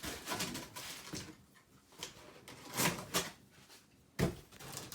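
Cardboard box and packaging being handled: irregular rustling and scraping, with a sharp knock about four seconds in.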